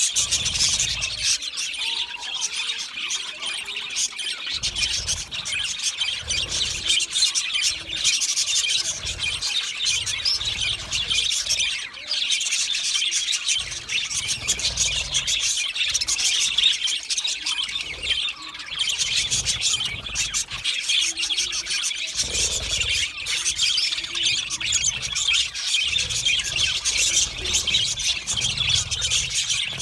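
Budgerigars chirping and warbling in a continuous, dense high-pitched chatter.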